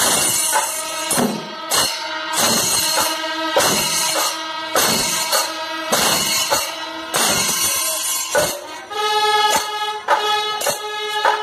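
Kerala chenda melam: several chenda drums beaten with sticks in dense, driving strokes, with ilathalam hand cymbals clashing over them. Steady held notes also sound through it, clearest near the end.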